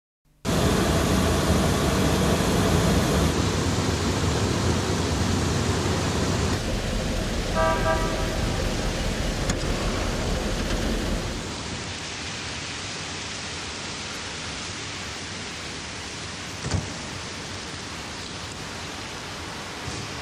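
Steady hiss over a low rumble, with a short car horn toot about seven and a half seconds in. About eleven seconds in the rumble drops away, leaving a quieter hiss, and a single click comes near seventeen seconds.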